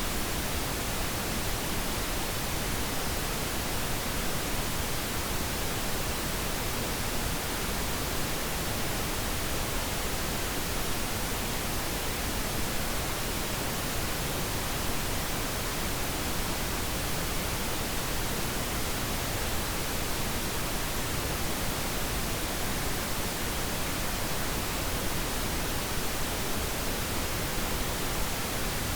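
Steady pink noise: an even, unchanging hiss spread across all pitches, used as a sleep aid.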